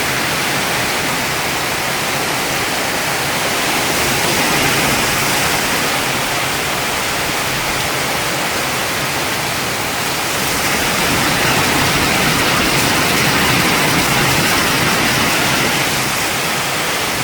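Very heavy rain pouring down in a steady, loud hiss, swelling a little twice.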